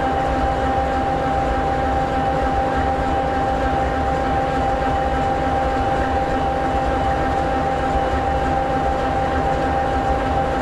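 An SD60E locomotive's EMD 16-710G3B sixteen-cylinder two-stroke diesel idling steadily. It is a low rumble with a steady high tone over it.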